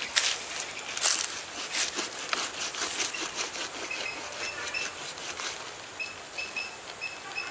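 A knife sawing and cutting through the rough rind and fibrous flesh of a whole jackfruit: a rapid run of short scraping strokes that thins out after about five seconds. Short high chirps repeat through the last few seconds.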